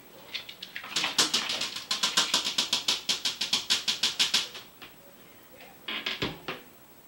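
Puppy's claws clicking rapidly on a wooden floor as it scampers, about seven clicks a second for some four seconds. A short second flurry of clicks with a soft thud follows about six seconds in.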